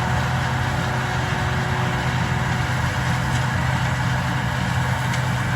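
A vehicle engine running steadily at constant speed: a low, even hum with a faint steady higher tone above it.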